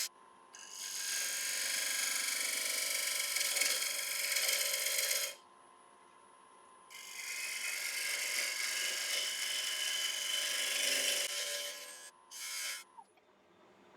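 Turning tool cutting into a spinning Iroko bowl blank on a wood lathe: two long passes of hissing shavings, about five and four seconds long, with the tool lifted off in between, then two brief touches near the end. A faint steady whine from the running lathe carries on underneath.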